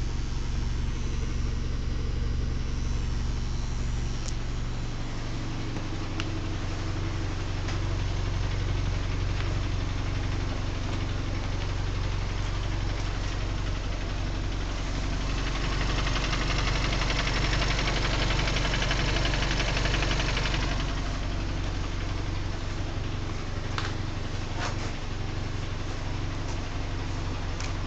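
VW Scirocco 1.4 TSI (160 PS) engine idling warm, with a rattle from the clutch or gearbox. The owner says the rattle comes at idle at operating temperature and goes away when the clutch is engaged. A VW workshop called it normal; the owner blames the recent engine swap.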